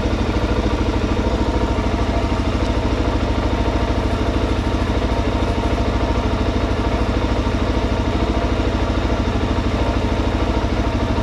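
Suzuki DR-Z400S single-cylinder four-stroke engine idling steadily.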